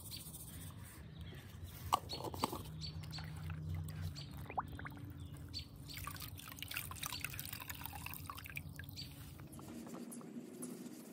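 Water sloshing and dripping in a plastic bucket of TSP cleaner solution as a cloth rag is dunked and wrung out, with irregular small splashes and clicks and one sharp knock about two seconds in.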